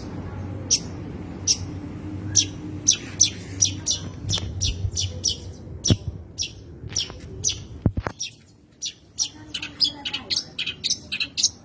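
Long-tailed shrike (cendet) singing a loose, varied string of short, sharp chirps and calls, spaced out at first and coming rapidly in the last few seconds. A steady low hum underneath stops about eight seconds in.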